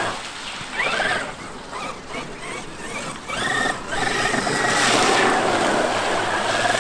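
A Traxxas X-Maxx RC monster truck's electric motor whining in short rising bursts as it is throttled, then holding a steadier whine with a noisy rush through the second half.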